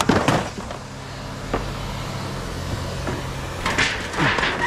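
A vehicle engine idling steadily, with a few knocks and clanks of things being handled: the loudest right at the start, one about a second and a half in, and a cluster near the end.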